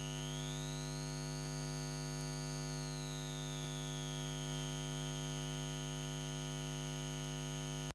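Steady electrical mains hum with a buzzy stack of overtones and a hiss. A faint high whine glides slowly up and back down over the first few seconds. The hum cuts off suddenly at the end.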